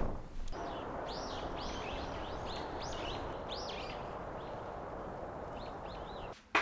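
Outdoor ambience: small birds chirping in a series of short arched calls, then a few more near the end, over a steady background rush of outdoor noise.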